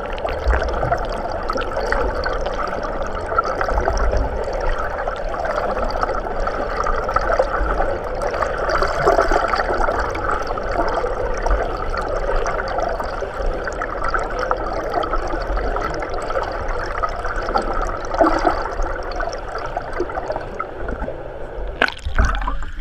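Pool water heard from underwater: a steady, muffled wash and gurgle of water stirred by swimmers' strokes and kicks. It changes briefly near the end.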